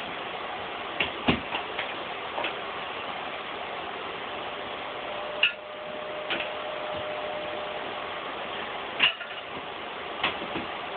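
A plastic litter scoop raking through granular cat litter and knocking against the litter box, a scatter of short sharp scrapes and taps, several in the first couple of seconds and a few more later. A steady hum runs underneath.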